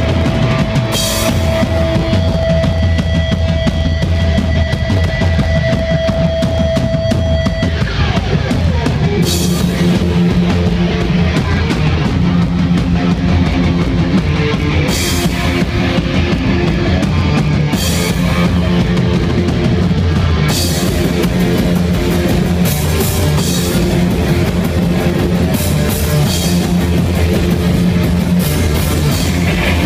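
Live rock band with distorted electric guitars and a drum kit. A single held note rings for about eight seconds, then slides down in pitch into a driving riff over the drums.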